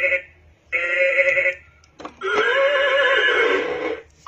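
Chicco Animal Train toy's small speaker playing recorded sounds as its buttons are pressed: a short clip twice, then a longer horse whinny with a wavering pitch.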